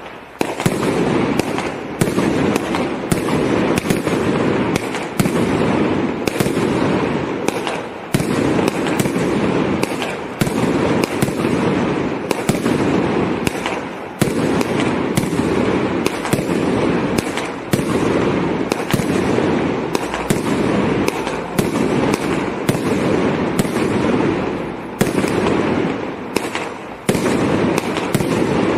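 Multi-shot aerial firework cake firing: a rapid string of sharp launch and burst reports, about one to two a second, with a continuous rumble between them.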